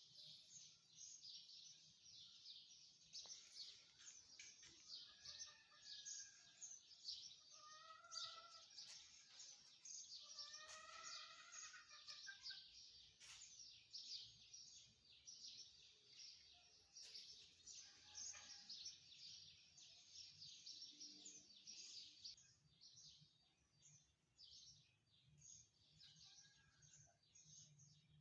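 Faint, continuous chirping of many small birds, with a few louder, lower arching calls between about five and twelve seconds in.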